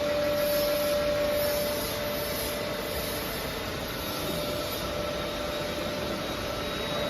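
Portable gantry milling machine running steadily under test: an even mechanical hum with a constant whine held at one pitch throughout.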